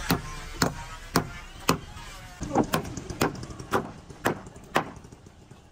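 A hand tool striking wood at a steady pace, about two sharp blows a second, stopping near the end: work on a wooden ship's hull, by hammer or adze.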